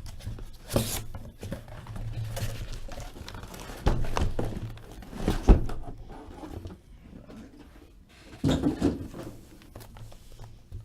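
Cardboard trading-card boxes being handled and set down on a table: scattered thunks and knocks. The loudest comes about five and a half seconds in, and a quick cluster follows near the end.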